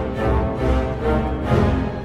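Orchestral film score music playing loud, with dense chords and strong accented hits.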